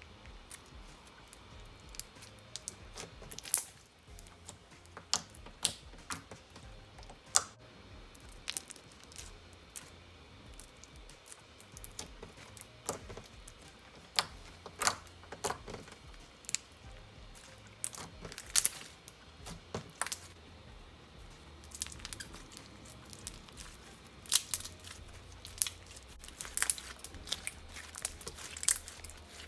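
Thick clear slime with honeycomb sponge pieces in it being squeezed and stretched by hand, giving irregular sharp clicks, pops and crackles a few times a second.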